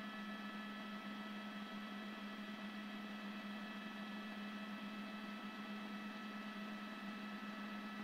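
A steady low hum with an even hiss and several constant high-pitched tones over it, unchanging throughout.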